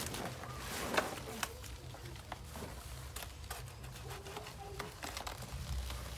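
A large knife chopping into a banana plant's trunk, with a sharp chop about a second in, a second one shortly after, then lighter cuts and the rustle of leaves.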